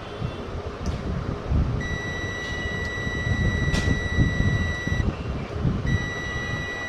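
Multimeter continuity buzzer giving a steady high beep for about three seconds, then sounding again near the end, as the probes sit across a diode on the monitor's power board: the diode is shorted. Beneath it runs a steady low rumble of background noise.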